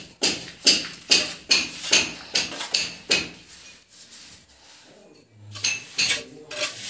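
Steel masonry tools scraping through wet cement mortar and knocking on bricks: a run of sharp scrapes about two a second, a pause, then a few more near the end.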